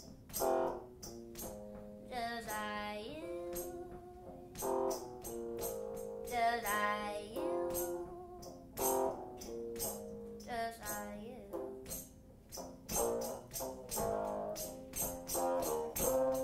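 Live band playing a slow rock song, with long held, wavering notes over repeated sharp percussive hits.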